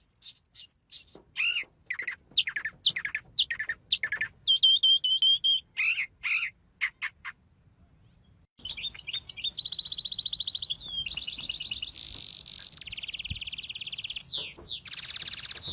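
Birds calling: a string of short chirps, squawks and high whistled notes, then, after about a second's pause, long runs of rapid buzzing trills.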